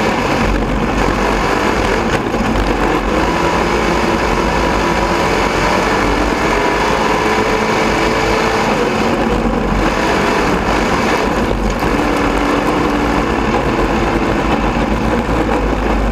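Onboard sound of a dirt-track race car's engine running steadily at moderate revs, its pitch drifting slowly down and up.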